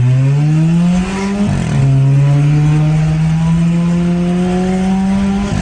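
Volkswagen Golf 1.6 MSI four-cylinder engine, its exhaust running through a diffuser with the catalytic converter element removed, accelerating through the gears of its Tiptronic automatic. The engine note climbs, drops at a gear change about a second and a half in, then climbs slowly again until another shift at the very end.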